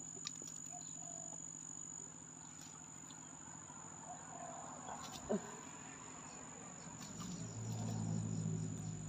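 Insects trilling on one steady high note. A low hum swells in the last two seconds, and a single sharp click comes about five seconds in.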